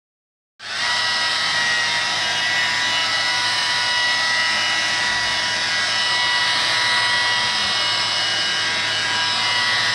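Electric rotary polisher with an 8-inch compounding Turbobuff foam pad running steadily against painted bodywork, giving an even whine that holds a constant pitch.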